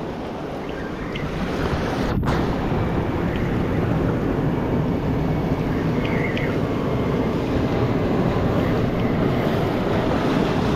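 Ocean waves surging and washing over the rocks of a jetty: a steady rushing noise, with wind on the microphone. The sound cuts out for an instant about two seconds in.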